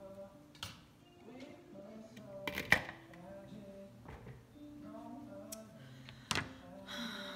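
Kitchen items being handled: a few sharp knocks and clatters, the loudest a quick cluster about two and a half seconds in, and another near the end.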